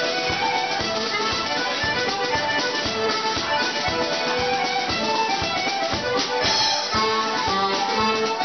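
Irish céilí band playing a fast reel: button accordion and fiddle carrying the quick melody together, with flute, over a steady beat on céilí drums.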